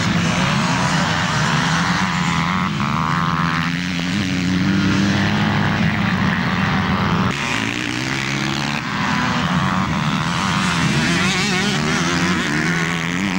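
Motocross dirt bike engines revving hard as the bikes race along the track, their pitch climbing and dropping with the throttle and gear changes.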